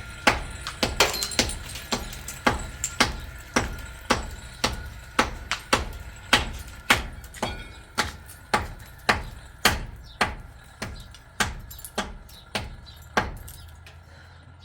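Hammer blows on metal in a steady rhythm, about two strikes a second, each with a short ring.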